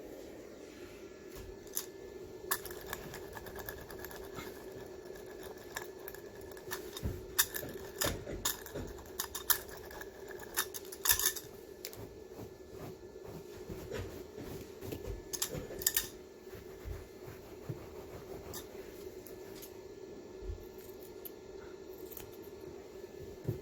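Hand tools working on carpet: scattered clicks, scrapes and cutting sounds, busiest in the middle, over a steady low hum.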